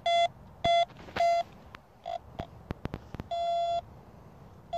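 Budget vidaXL metal detector sounding target tones as its coil sweeps over metal in the soil: three short beeps at one mid pitch in the first second and a half, then a longer beep about three and a half seconds in and another right at the end. Faint clicks fall between the beeps.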